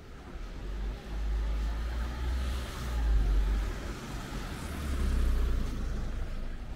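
Cars passing close by. The sound of engine and tyres swells twice, about three seconds in and again about five seconds in.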